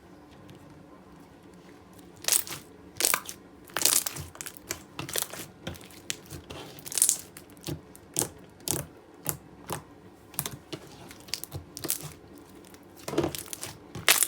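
Gold metallic shimmery slime being played with by hand, making irregular short clicks and pops several times a second, starting about two seconds in.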